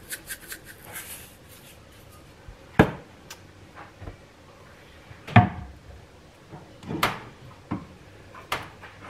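Separate knocks and clunks of kitchen items being handled and set down on a countertop, the loudest about three and five seconds in, after a quick run of light ticks at the very start.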